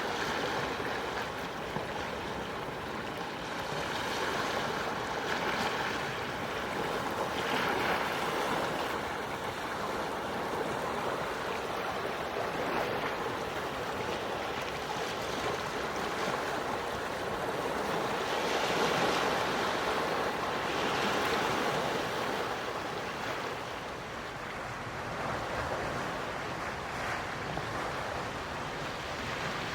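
Calm sea waves washing ashore: a steady wash that swells and eases slowly, with softer surges several times.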